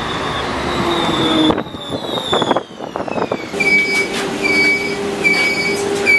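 Warsaw trams: an electric tram whining and rumbling as it pulls into the stop, then inside a tram a whine that falls in pitch. From about halfway through, a warning beeper sounds about once every 0.8 seconds.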